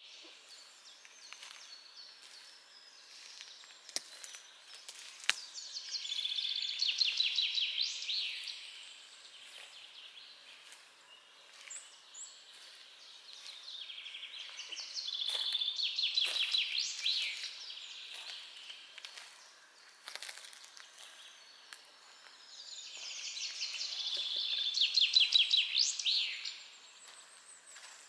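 A songbird singing: three phrases of rapid repeated high notes, each about three seconds long, building in loudness and coming about every eight or nine seconds, with other birds calling faintly in between.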